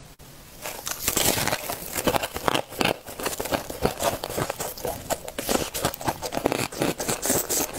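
Close-up crunching and crackling of frozen ice being bitten and chewed, a dense run of crisp crunches starting about half a second in.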